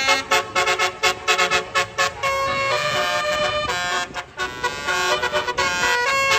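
Tour bus's Basuri telolet horn playing a melody: a run of quick short toots, then longer held notes, with a brief break about four seconds in.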